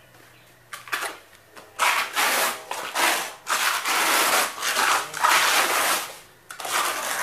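Trowel scraping and smearing a wet cement resurfacing overlay across a board in short, quick, random strokes. The strokes come as a fast run of rasping swipes that starts about two seconds in, with a short pause near the end.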